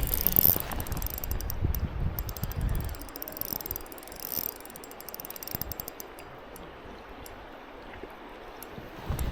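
Fishing reel clicking in quick, irregular runs while a hooked steelhead is being played. Low rumbling handling noise is heard for the first three seconds.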